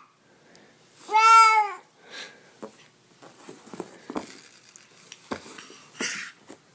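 A baby's single loud squeal about a second in, rising then falling in pitch, followed by a brief softer coo and then light rustling and small taps of a soft toy being handled.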